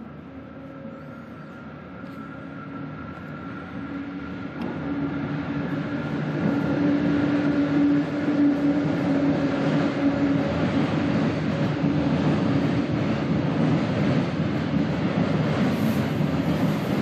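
Electric freight locomotive hauling a container train approaches and passes, growing steadily louder over the first several seconds with a steady hum. The container wagons then roll by with continuous wheel-on-rail noise.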